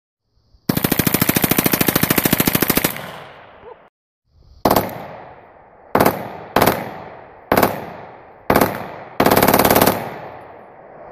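A compact automatic weapon fires one long full-auto burst of about two seconds. After a short break, a full-auto Glock pistol fires six short, very rapid bursts, the last the longest, each followed by an echo.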